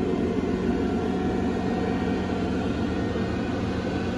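Crane truck's diesel engine running steadily under load, powering the crane as it hoists a suspended load, with a steady hum.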